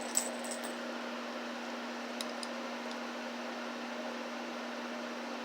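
A few small sharp clicks of brass cartridges and calipers being handled during measuring, about a quarter second in and again around two seconds in, over a steady low hum and hiss.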